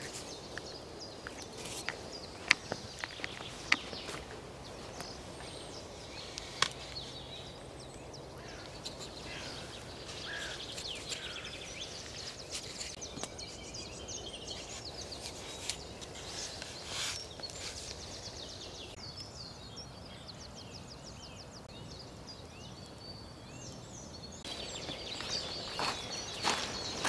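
Driftwood sticks knocking as they are set upright into a shelter wall, a few sharp knocks in the first several seconds, over a steady outdoor hush with birds chirping. Near the end, footsteps crunch on river gravel.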